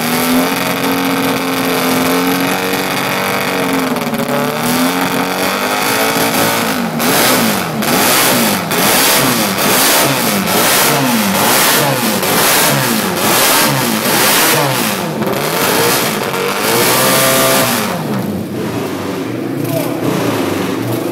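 MV Agusta racing motorcycle engine running on its stand in the pit box and being warmed up with the throttle. It runs fairly steadily at first, then is revved up and dropped back in quick blips about once a second, before settling to a lower, quieter running near the end.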